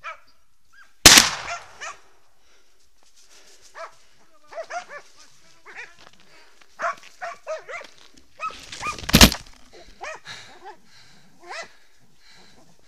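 Two loud shotgun shots about eight seconds apart, the first about a second in, with hunting hounds barking and baying in short calls between and after them.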